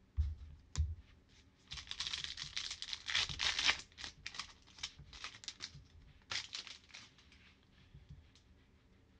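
Foil wrapper of a 2021 Panini Prizm football card pack being torn open and crinkled, loudest for about two seconds, then a few scattered crackles as the cards come out. Two short light knocks come just before it.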